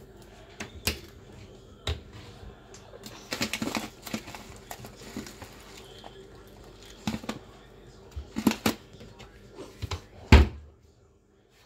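Guinea pigs rustling and chewing in hay on a fleece blanket: irregular small clicks and crunchy rustles, with one louder thump about ten seconds in.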